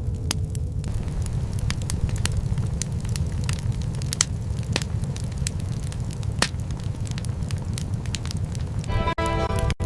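Fire crackling, with irregular sharp pops over a steady low rumble. Background music fades out about a second in and returns near the end.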